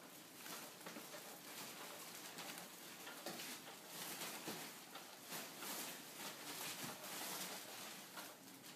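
Foil (mylar) helium balloons crinkling and rustling as a kitten caught among them shifts them about on the floor, a soft continuous crinkle with many small crackles.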